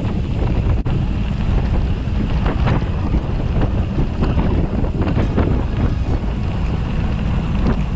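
Wind buffeting the microphone of a camera on a moving gravel bike, over the steady crunch of tyres rolling on a gravel track, with scattered small crackles of loose stones.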